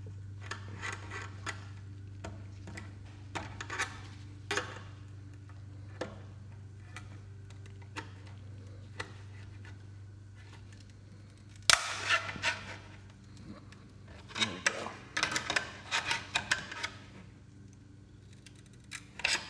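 Screwdriver clicking and scraping against the crimped sheet-metal seam of an AW4 automatic transmission filter as it is pried open: scattered small clicks, a sharp click about twelve seconds in, then quick runs of clicking and scraping. A steady low hum underneath fades out about halfway.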